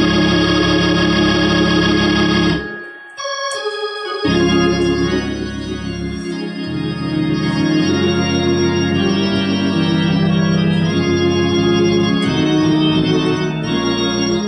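Electric console organ with two manuals, played two-handed: full held chords over a strong bass. About two and a half seconds in it cuts off for a second or so, then comes back in with changing chords.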